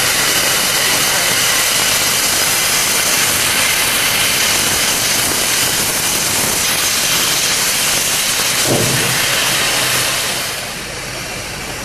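Steam locomotive J515 giving off a loud, steady hiss of escaping steam, which eases off noticeably near the end.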